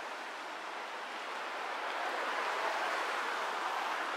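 City street traffic noise, swelling about two seconds in and easing near the end as a vehicle passes.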